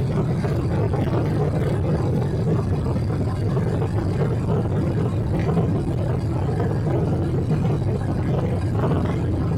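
Steady low rumble of cabin noise inside a Boeing 777-300 airliner, with no sudden changes.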